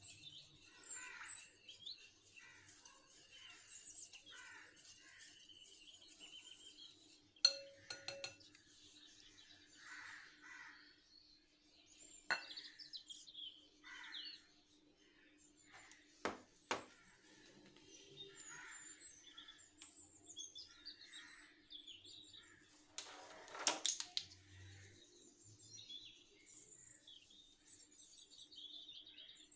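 Small birds chirping and twittering throughout, quietly, over a faint steady hum. A few sharp clinks and knocks of utensils against a glass bowl come through, about 7 s in, around 12 and 16 s, and a louder cluster about 23 to 24 s in.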